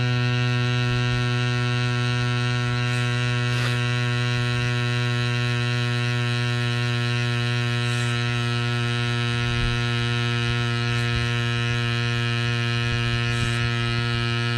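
Cycplus Cube mini electric tyre compressor running on a mountain-bike tyre valve, a steady pitched drone as it pumps air into the tyre.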